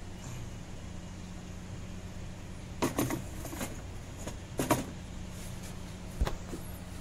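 Metal tools and engine parts clinking and clattering during engine teardown in an engine bay: a few sharp clinks about three seconds in, more near five seconds, and a dull knock about six seconds in, over a steady low hum.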